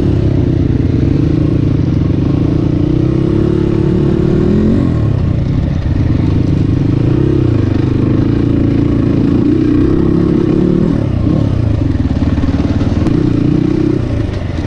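CrossFire 250 cc dirt bike engine running under way on a rough off-road track. Its note rises and falls steadily with the throttle, dipping briefly a couple of times.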